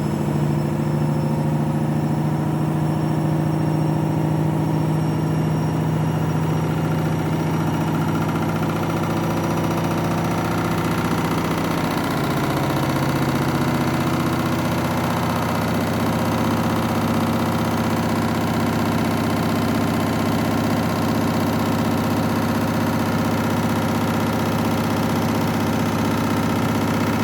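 Washing machine drum spinning in its final spin with an unbalanced load of two bathrobes: a loud, steady motor hum with several held tones, which shift in pitch about twelve seconds in as the spin speed changes.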